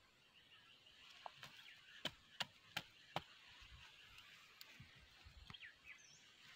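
A broad knife blade chopping into dry, lumpy soil, four sharp strikes in quick succession about two seconds in, digging planting holes to replant corn.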